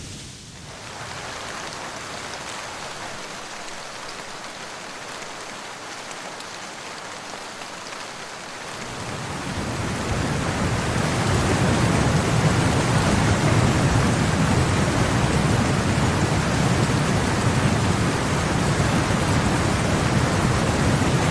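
Heavy rain, a steady hiss that grows louder, with a deeper rush, from about nine seconds in.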